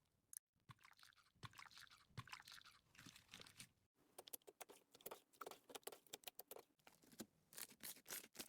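Slime being worked by hand, giving a quiet run of crackles and sticky pops. The clicks come thicker and sharper in the second half.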